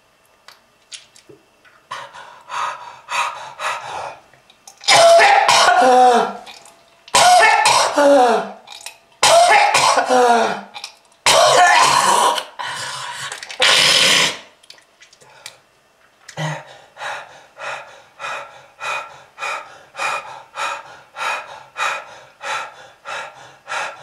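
A smoker coughing: a few short coughs, then four long, loud hacking fits with a rasping voice that falls in pitch, then after a pause a steady run of short coughs at about two a second.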